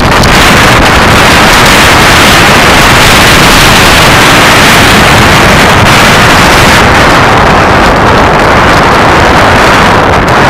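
Loud, steady rushing noise that overloads the recording: wind buffeting the microphone of a camera moving fast along a dirt trail, mixed with the rumble of the ride.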